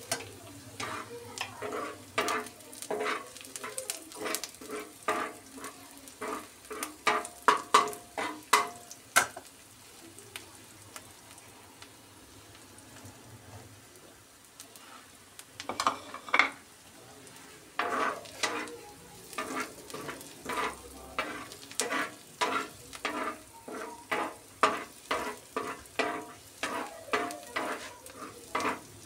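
A metal spatula scrapes and taps across a tawa griddle, stirring chopped onions as they fry, over a steady sizzle. There are quick repeated strokes, about two a second; they stop for several seconds in the middle, leaving only the sizzle, then start again.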